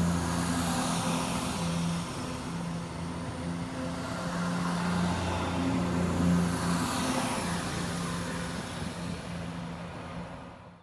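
Southern multiple-unit passenger train running past the platform: a steady low hum with wheel and rail noise over it, fading near the end.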